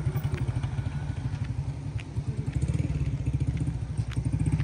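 Small motorcycle engine running at low speed, its firing strokes making a rapid, even pulsing, with a few light clicks.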